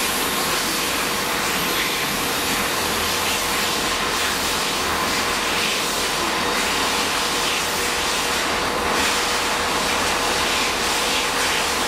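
Two coupled Class 66 diesel locomotives running without a train, their two-stroke V12 diesel engines running steadily under an even hiss.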